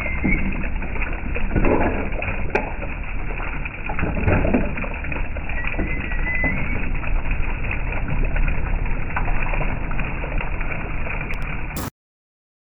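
Water flowing and splashing in a continuous rush, with a short bird call near the start and another about six seconds in; the sound cuts off abruptly near the end.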